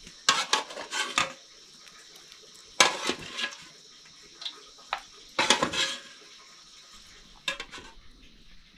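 Metal spatula clinking and scraping against a metal cooking pot as pieces of boiled pork are lifted out, in four short bursts of clatter a couple of seconds apart.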